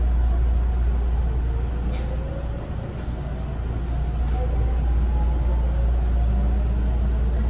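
JR West 207 series electric commuter train heard from inside a control trailer car: a steady low rumble of the wheels and running gear. Over it, a faint whine from the traction motors rises slowly in pitch as the train picks up speed.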